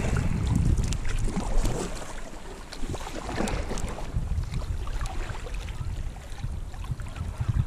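Water splashing and lapping around a sea kayak, with wind buffeting the microphone in an uneven low rumble.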